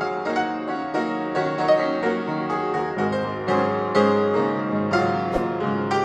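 Background piano music, a steady run of notes.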